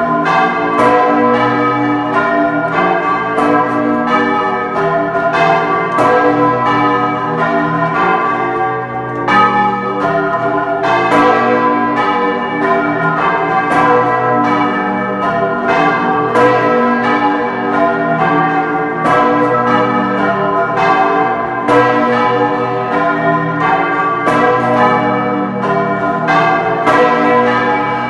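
The bells of the Cathedral of San Pietro in Bologna ringing together, close up from inside the bell chamber: a loud, unbroken run of overlapping strokes, several a second, each leaving a long ringing tone under the next.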